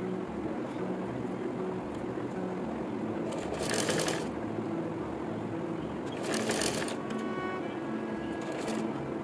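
Background music with a steady beat, with short bursts of a domestic sewing machine stitching about three and a half seconds in, again near six and a half seconds, and briefly near the end.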